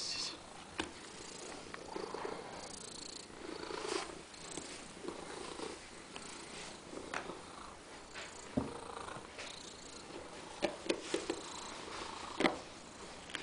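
Domestic cat purring, with scattered soft knocks and rustles as it rolls about.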